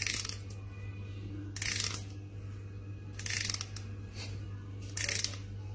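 A thumbnail strummed along the teeth of a comb, four short zips about a second and a half apart, over a steady low hum.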